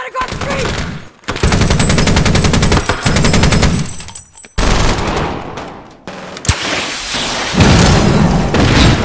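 Automatic fire from a vehicle-mounted belt-fed machine gun, a rapid rattle lasting about three seconds, then more gunfire that fades out. A loud explosion follows near the end, with a low rumble after it.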